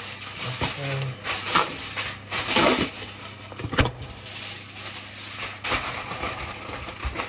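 Aluminium foil being pulled from its box and crinkled and pressed over a metal baking tray, in irregular spells of crackly rustling.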